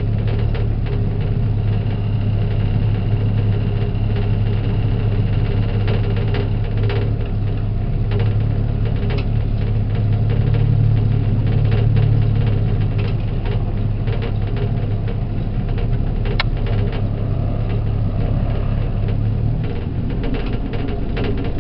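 Motor boat's engine running steadily, an even low drone.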